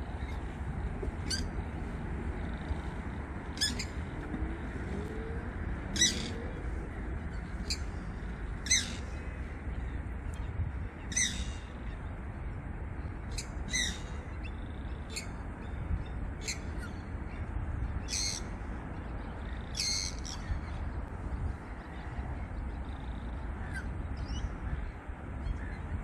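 Wild birds calling: short, sharp high-pitched calls repeated every one to two seconds, over a steady low rumble.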